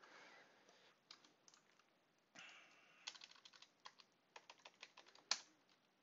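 Typing on a computer keyboard: faint key clicks in quick runs, with one louder keystroke near the end.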